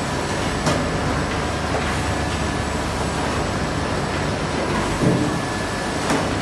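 Metalbud Nowicki MH-424 brine injector running, a steady mechanical hum and hiss with a few sharp clacks.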